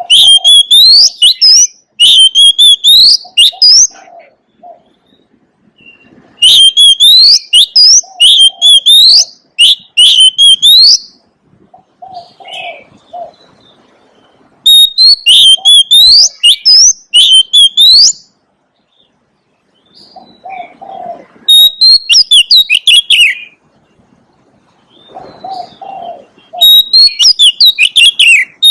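Oriental magpie-robin singing loud bursts of rapid, sweeping whistles and trills, about five phrases of two to four seconds with short pauses between. Soft low notes sound in the pauses.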